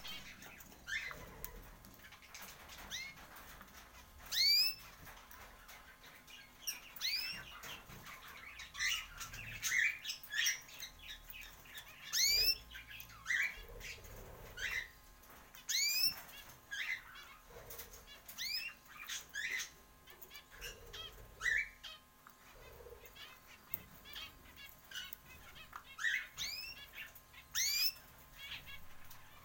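A group of birds calling: short, sharp rising chirps and squawks, one or two a second, with occasional wing flutters.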